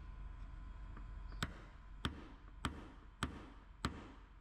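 A hammer tapping a paintless-dent-repair knockdown tool held against a car body panel. Sharp, evenly spaced taps come a little under two a second, starting about a second and a half in. They knock down the small raised poke marks in the metal.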